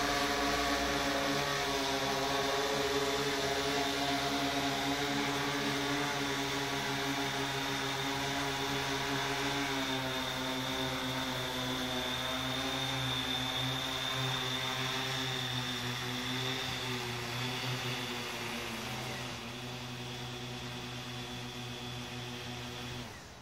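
Quadcopter drone's rotors buzzing steadily while hovering, the pitch sinking a little about ten seconds in as it comes down low. Near twenty seconds the hum turns quieter, and it stops just at the end.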